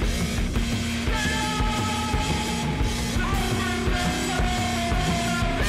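Rock soundtrack music with drums, distorted guitar and a steady beat.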